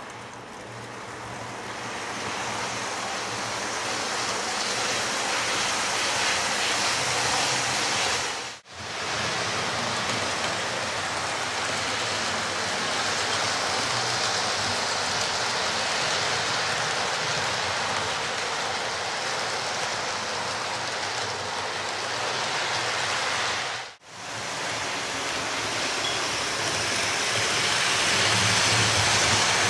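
Model trains running on a layout: a steady rushing whir of wheels on track and small motors, with a faint low hum underneath. It drops out sharply twice, briefly each time.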